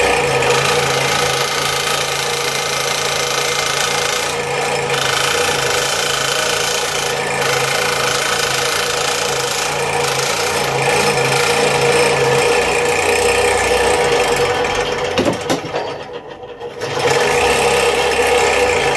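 Scroll saw running with its blade cutting through a thick poplar spoon blank, a steady machine sound; it drops away for about a second around three-quarters of the way through, then comes back.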